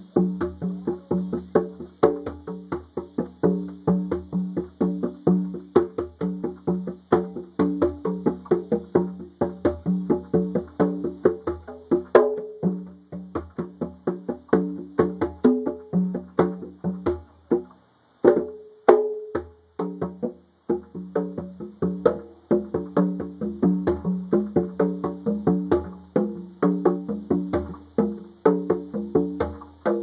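A pair of conga drums played by hand in a quick, steady rhythm of ringing open tones and sharper slaps, breaking off briefly about eighteen seconds in. A faint steady drone of cicadas sits high above the drums.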